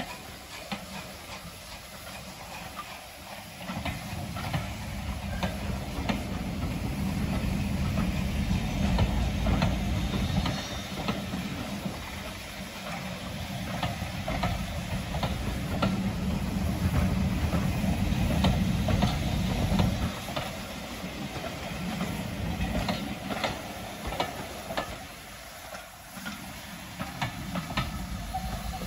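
Steam-hauled train running past with a steady hiss of steam and wheels clicking over the rail joints. A low rumble builds from about four seconds in and drops away at about twenty seconds.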